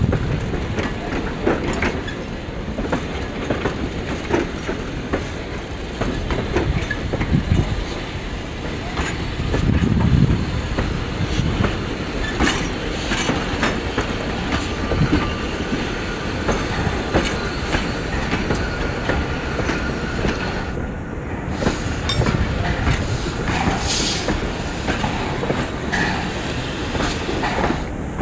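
Heritage wooden passenger carriages rolling slowly past close by: a steady rumble from the wheels, with frequent irregular clicks and clacks as they run over the rail joints.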